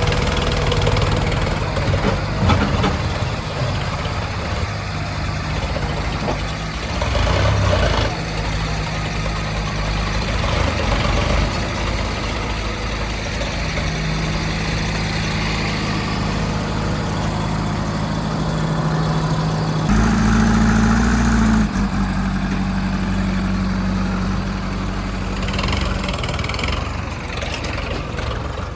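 Heavy diesel engine running with shifting engine speed, picking up and easing off several times, with a louder revving stretch of a couple of seconds about twenty seconds in.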